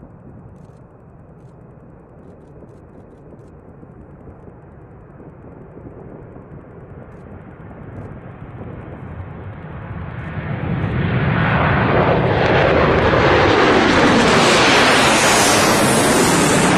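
Rockwell B-1B Lancer's four turbofan engines in afterburner on takeoff climb. The jet noise builds slowly from a distant rumble, then swells sharply about ten seconds in to a loud, steady roar with a sweeping, phasing sound as the bomber passes overhead.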